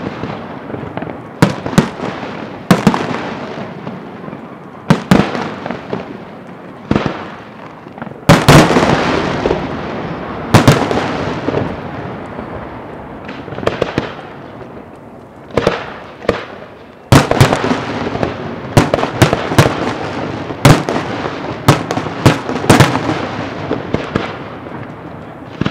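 Aerial firework shells bursting one after another: a long string of sharp bangs, some in quick clusters, each followed by a long reverberating tail.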